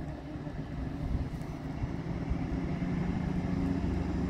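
Grand Central Class 180 diesel multiple unit approaching: a steady low engine drone with a couple of held tones, growing gradually louder as the train nears.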